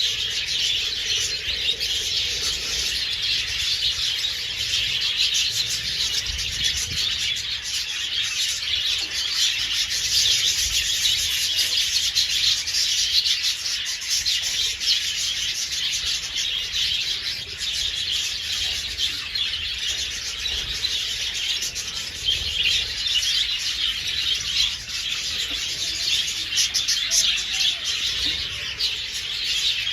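A flock of budgerigars chattering together, a dense, continuous mix of high chirps and warbles with no pause.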